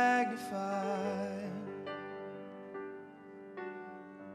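Worship song: voices finish a sung line in about the first second and a half, then a keyboard plays held chords, changing about every second.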